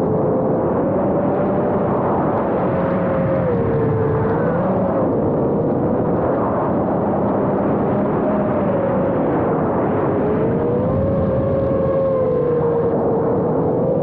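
5-inch FPV quadcopter's brushless motors and propellers whining, the pitch swinging up and down with throttle changes, over a steady rush of wind noise on the camera riding on the quad.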